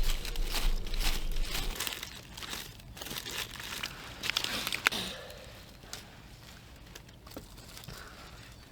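Dry fire-starting tinder being crumpled and crinkled by hand, with dense crackling for the first couple of seconds, a further burst around four to five seconds in, then only faint rustling.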